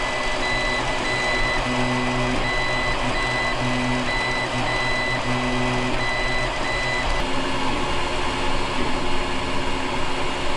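Creality 3D printer running a print. Its cooling fans whir steadily while the stepper motors hum in short tones that start and stop as the print head moves.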